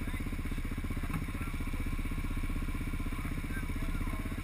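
ATV engine idling steadily, with an even, rapid firing beat that does not change.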